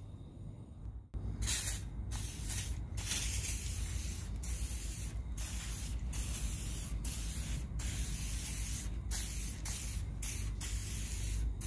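Aerosol spray can hissing in about a dozen short bursts, one after another, starting about a second in, as the can is sprayed over a motorcycle fairing panel to clean off dust.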